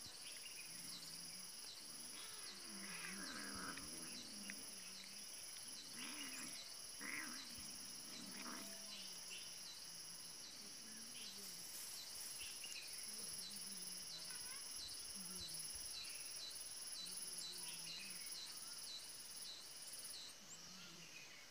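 Faint, steady insect chirring, pulsing evenly about twice a second in two high pitches. A few low animal sounds come in between about two and nine seconds in.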